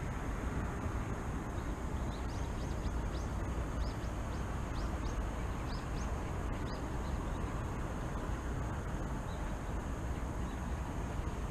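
Small birds chirping, a quick run of about a dozen short high notes that fades to a few faint chirps near the end, over a steady low rumble of city traffic.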